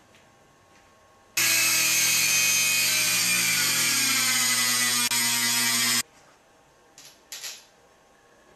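Dremel rotary tool with a cutoff wheel cutting through a metal coil spring: a loud whine starts about a second and a half in, sags slowly in pitch under the load, and stops at about six seconds. A few small clicks follow.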